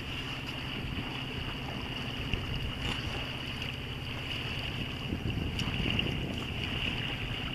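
Small sailboat's old Yanmar inboard diesel running steadily under way, a low, even drone.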